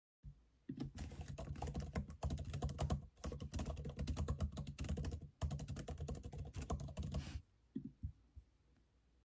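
Typing on a MacBook Air M1 laptop keyboard: a steady run of key clicks, broken by two short pauses, then a few last separate taps near the end.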